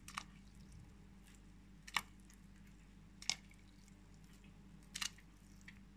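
Raw meatballs dropped one by one into hot water in a multicooker bowl, each making a short soft plop or splash, about four over the few seconds, over a faint steady hum.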